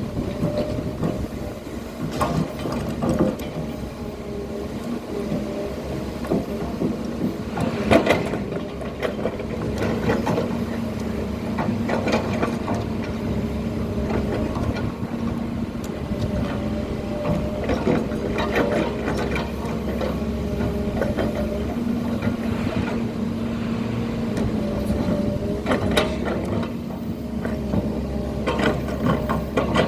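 Hydraulic excavator at work: a steady engine and hydraulic hum under a low rumble, broken by sharp knocks and clanks now and then, the loudest about eight seconds in.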